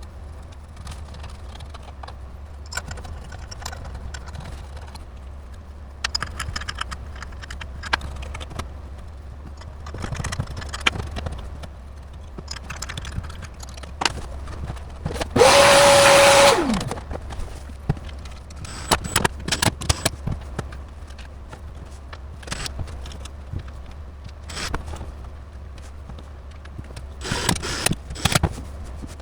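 Handling noises, with scrapes, clicks and rattles of hardware and cables, over a steady low hum. About halfway through, a small electric motor whirs loudly for a second or so, then winds down with a falling pitch.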